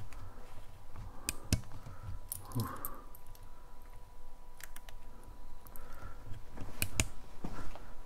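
Irregular sharp clicks and light knocks, unevenly spaced, over a low rumble with a faint steady high tone underneath.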